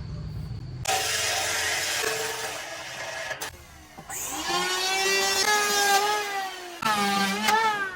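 Woodworking power tool running in spells: a noisy stretch, then after a short break a strong pitched whine that rises and dips in pitch.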